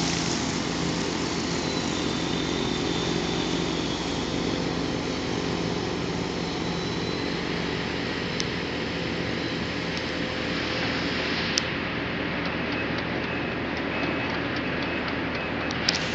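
Amphibious excavator's diesel engine running steadily as it works its bucket in the water, with a few sharp clicks in the second half.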